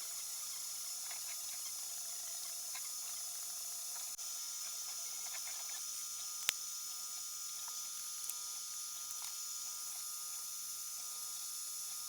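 3D printer running: its stepper motors make short squeaky chirps over a steady high-pitched electronic whine, with one sharp click about halfway through.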